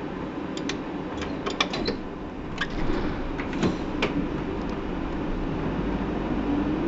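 Hino PDG-KV234N2 city bus heard from inside, with steady engine and road noise. A run of sharp clicks and clatters comes in the first four seconds, and the engine note rises near the end.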